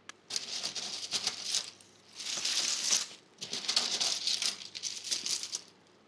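Handfuls of small 3D-printed plastic keychains rattling and clattering together as they are scooped by hand and poured into a bubble bag, in three bursts.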